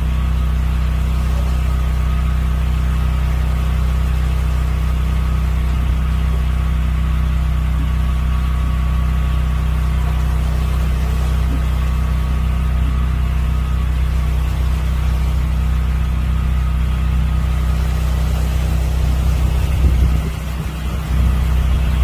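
An engine running steadily at idle: a deep, even drone with a faint higher whine over it, dipping briefly near the end.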